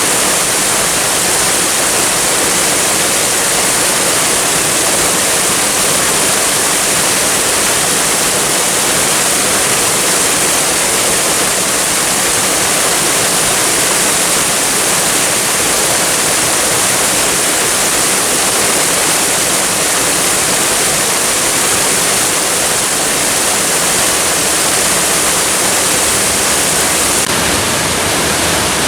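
Waterfall cascading steadily: a constant, even rush of falling water, bright and hissy, with no breaks.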